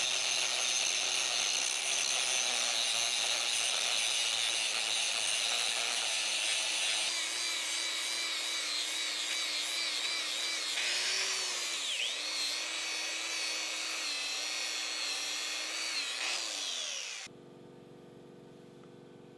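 Angle grinder grinding steel at a weld repair, its motor whine dipping as it is pressed into the work. Near the end the whine falls as the grinder winds down, then the noise stops suddenly, leaving only a faint steady hum.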